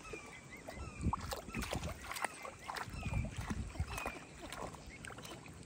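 Emu chicks bathing in a shallow pond: irregular water splashes and sloshing as they wade and dip. Several short, high, falling chirps are scattered among the splashes.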